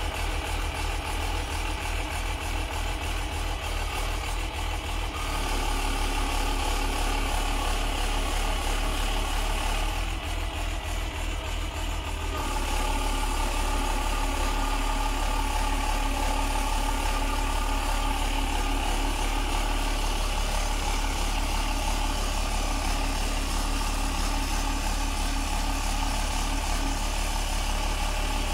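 A crane truck's diesel engine running, driving the hydraulics of a Palfinger SPK23500 knuckle-boom crane as the boom folds down. The sound grows louder about five seconds in and again about twelve seconds in.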